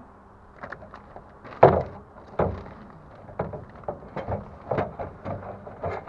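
A string of irregular knocks and clunks, one every half second to a second, the loudest about one and a half seconds in: tools and parts being shifted around while searching a truck for a spare hub oiler.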